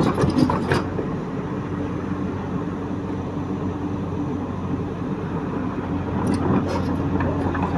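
Caterpillar 312 hydraulic excavator's diesel engine running at a steady speed, a low drone, with a few knocks in the first second.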